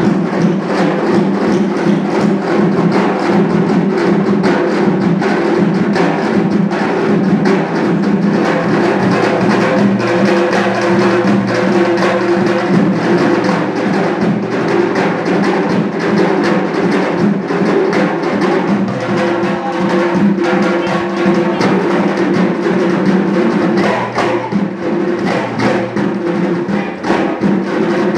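Ensemble of Azerbaijani nagara barrel drums played by hand, a fast, dense drumming rhythm without a break.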